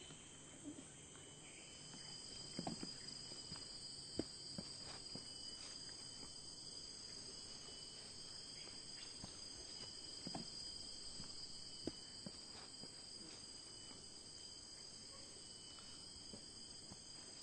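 Steady, high-pitched chirring of insects, a little louder from about two seconds in, with a few faint scattered knocks.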